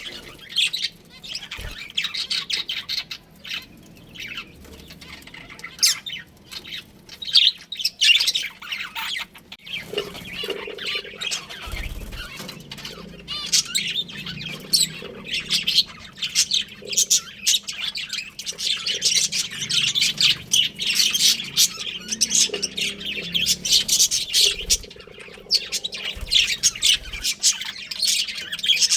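A flock of budgerigars chirping and chattering: many rapid, high-pitched chirps and squawks overlapping without pause, growing busier about halfway through.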